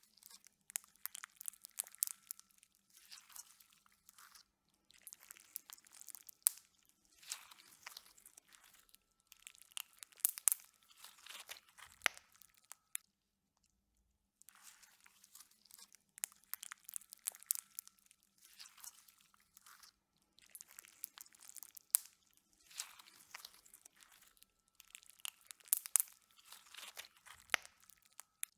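Slime being squeezed and pressed by hand, in repeated bouts of wet crackling and popping about a second apart, with a short pause about halfway through.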